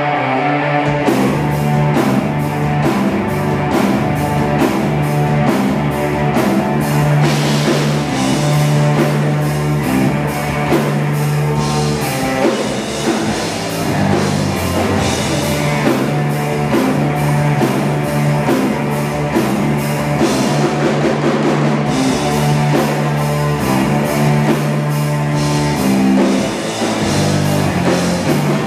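Live heavy rock band playing loudly: distorted electric guitars over a drum kit, the drums coming in about a second in and keeping a steady beat.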